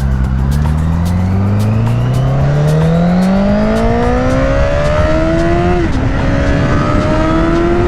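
Honda CBR1000RR inline-four with a full titanium exhaust accelerating hard: revs climb steadily, drop sharply at an upshift about six seconds in, then climb again.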